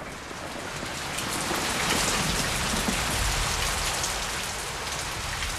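Rain falling: a dense, even hiss of drops that swells in over the first couple of seconds and then holds steady.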